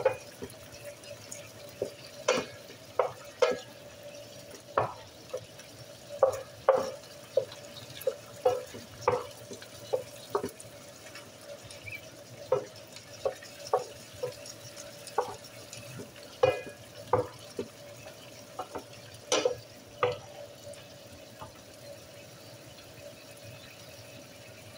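Wooden spatula scraping and knocking against a square nonstick skillet, stirring diced chicken frying in oil, with a faint steady sizzle underneath. The irregular strokes stop a few seconds before the end.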